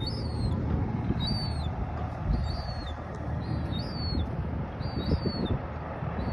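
Juvenile herring gull squeaking: a short, high-pitched whistled call, rising then falling, repeated about once a second. A low rumbling noise runs underneath.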